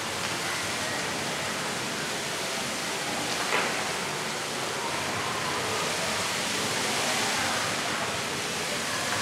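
Fountain water jets spraying up and splashing back into the pool, a steady rushing hiss with no music. A brief louder sound about three and a half seconds in.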